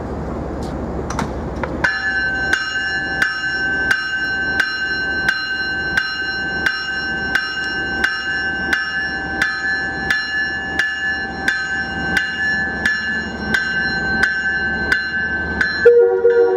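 A train's bell ringing steadily, struck about three times every two seconds, as the train approaches. A train horn sounds just before the end.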